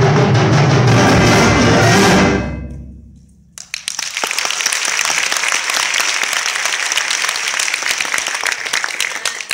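A wind orchestra hits its loud final chord with drums, which rings for about two seconds and dies away. About a second later, audience applause breaks out suddenly and carries on.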